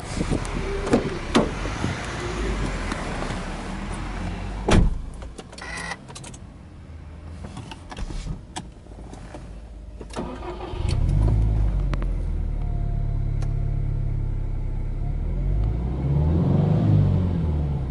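Clicks and a loud clunk from the car's door and interior, then about eleven seconds in the Subaru GRB Impreza WRX STI's 2.0-litre turbocharged flat-four starts and settles into a steady fast idle, its note rising and falling briefly near the end.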